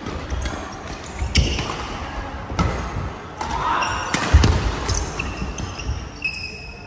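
Badminton rally: several sharp racket strikes on the shuttlecock, the loudest a jump smash about two-thirds of the way through, with sneakers squeaking and thudding on the court floor. The hall's echo is heard behind them.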